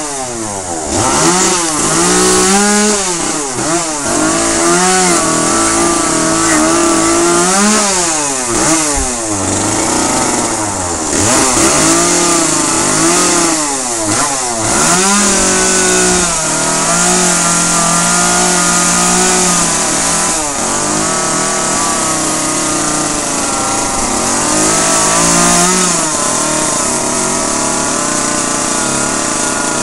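Chainsaw carving into a wooden log, its engine revving up and dropping back over and over as the chain bites, then running more steadily at high speed through the second half.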